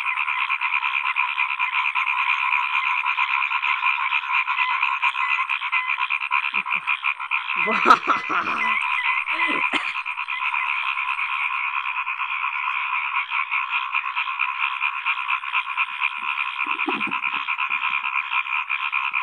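A dense chorus of many frogs calling at once, a steady, rapidly pulsing din that goes on without a break. There is a single sudden thump about eight seconds in.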